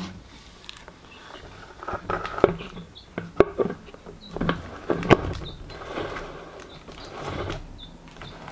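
Plastic knocking and rubbing as a clear plastic bottle and a plastic paint-bucket lid are handled, with irregular knocks and scrapes and two sharp knocks about three and a half and five seconds in.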